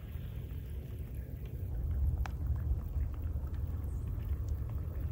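Low, steady rumble of wind buffeting the microphone, with a few faint clicks.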